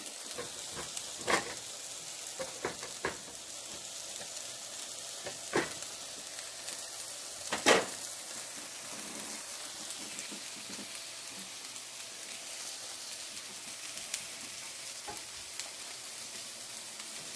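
Sliced bell peppers sizzling in olive oil in a frying pan, a steady hiss, nearly done. A few sharp knocks of a spatula against the pan break in, the loudest about eight seconds in.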